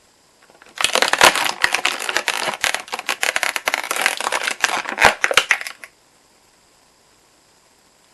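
Toy packaging being crinkled and handled, a dense crackling full of sharp clicks that starts just under a second in and stops after about five seconds.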